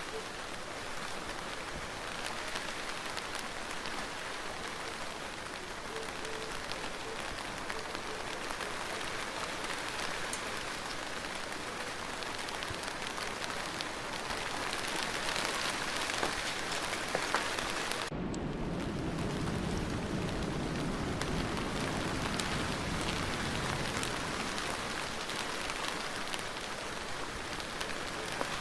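Steady rain falling, an even hiss of drops. About two-thirds of the way through the sound changes abruptly to a deeper, fuller rush of rain.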